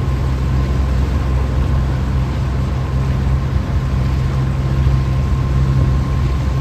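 Boat motor running steadily with a low drone and a faint steady whine above it, cut off suddenly at the end.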